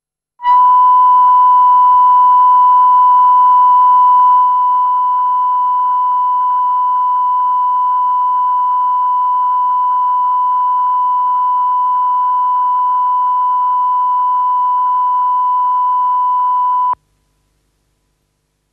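Steady 1 kHz line-up test tone played with colour bars at the head of a videotape, with a faint hiss under it. It starts about half a second in, drops slightly in level after about four and a half seconds, and cuts off suddenly near the end.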